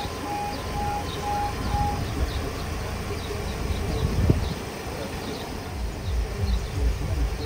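Level crossing warning alarm beeping a single repeated tone about twice a second while the barriers come down, cutting off about two seconds in once they are lowered. Under it runs a low, uneven rumble, small birds chirp, and there is one sharp knock just after four seconds.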